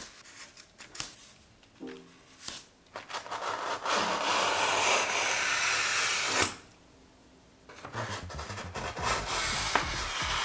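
Snap-off utility knife slicing along a large white sheet: a long, steady cutting noise from about three seconds in, breaking off for about a second past six seconds, then starting again. Faint background music with a few pitched notes sits under it.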